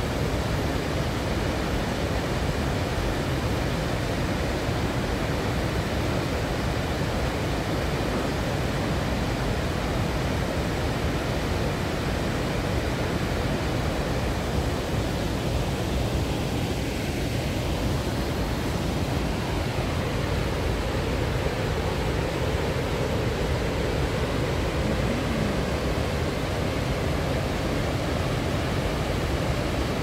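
Steady rush of water pouring over a wide, stepped river weir.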